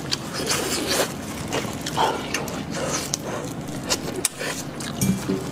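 Close-miked eating sounds: an irregular run of wet mouth clicks, smacks and sucking as meat is eaten off a bone of a braised sheep's head, with the rustle of disposable plastic gloves handling the food.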